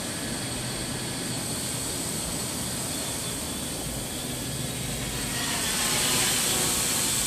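Electric multirotor drone's motors and propellers buzzing steadily in flight. The sound grows louder and brighter about five and a half seconds in as the drone comes close overhead.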